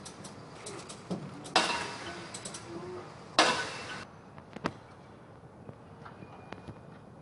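Two loud, sharp metal bangs, each dying away over about half a second, about a second and a half apart, with lighter clicks and knocks around them: metalwork on a mobile crane's hook block and boom head.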